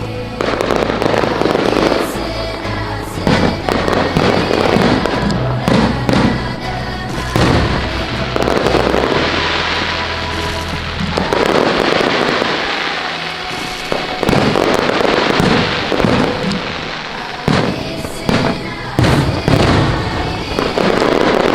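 Fireworks bursting again and again, with music playing underneath.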